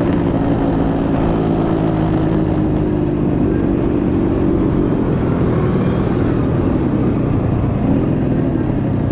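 Small motor scooter engine running steadily under riding wind and road noise; its steady note fades under the wind about halfway through.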